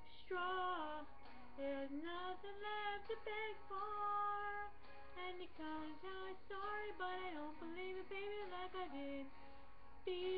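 A woman singing a pop song solo, holding notes and sliding between pitches.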